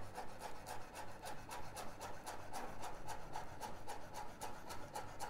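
Chef's knife finely slicing chives on a bamboo cutting board: quick, even taps of the blade on the wood, about six a second.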